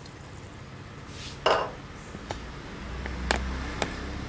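A few light clicks and knocks of kitchen utensils being handled over low room noise: one brief noisier sound about one and a half seconds in, then three sharp clicks.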